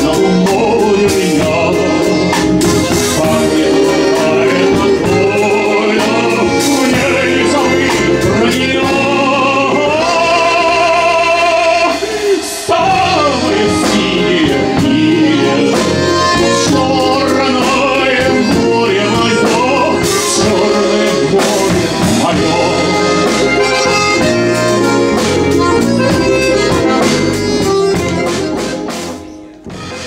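A man singing a song with a small live band, an acoustic bass guitar among the instruments. The music dips briefly near the end.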